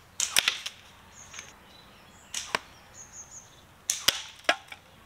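A string of sharp clicks and knocks, several coming in quick pairs, with two faint high tones between them.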